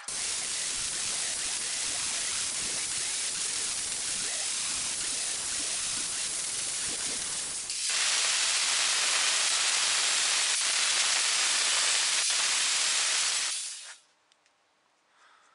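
Grinder cutting into the forged steel tomahawk head, a steady hiss of abrasive on steel that grows louder about eight seconds in and stops about fourteen seconds in.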